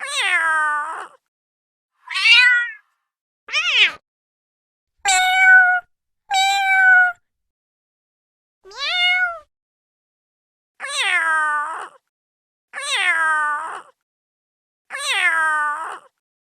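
A series of cat meows: nine separate calls, each about half a second to a second long, with silent gaps between them. Most fall in pitch, and four of them are the same drawn-out falling meow repeated.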